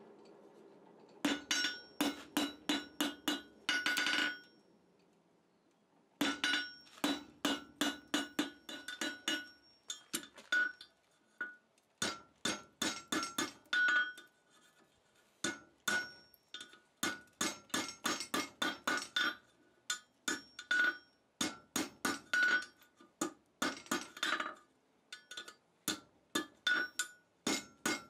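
Hand hammer striking a red-hot chain link of 3/8-inch round bar on a steel anvil. The hammer and anvil ring briefly with each blow. The blows come in quick runs of about three or four a second as the link is bent closed over the horn so its scarfed ends overlap, with a pause of about two seconds some four seconds in.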